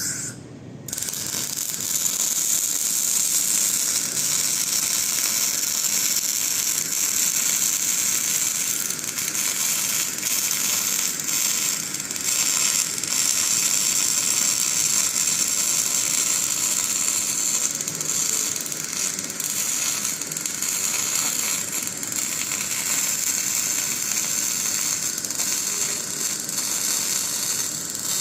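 MIG/MAG welding arc running with a continuous fine crackle, starting about a second in after a brief burst.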